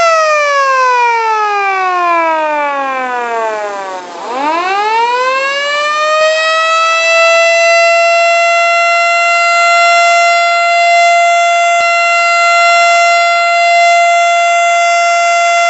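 Siren sounding as a sahur wake-up signal. Its tone slides down for about four seconds, swoops quickly back up, and then holds one steady, loud pitch.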